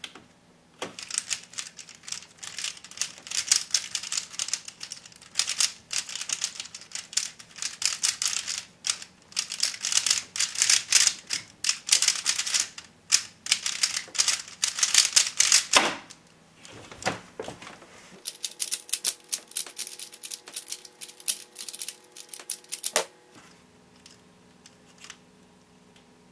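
A 3x3x3 speedcube being turned rapidly: a dense, fast clatter of plastic layer turns for about fifteen seconds that stops abruptly. A shorter, sparser run of clicking follows a couple of seconds later.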